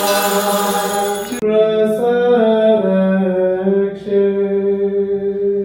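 Orthodox liturgical chanting. Voices sing together over a bright hiss, then about one and a half seconds in the sound changes abruptly to a single voice chanting long held notes that step slowly in pitch.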